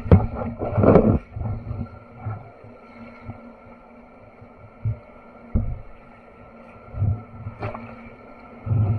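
Whitewater rushing around a kayak, with irregular dull thumps of water against the hull, the loudest about a second in.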